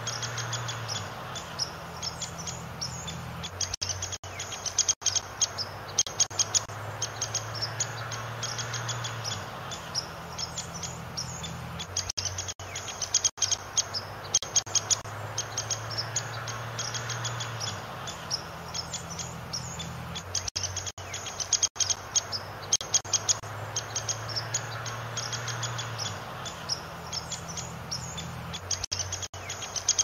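Small birds chirping in quick, high, short notes, with denser flurries about every eight seconds. It is a looped ambience track: the same passage of about eight seconds repeats, with a low hum under it.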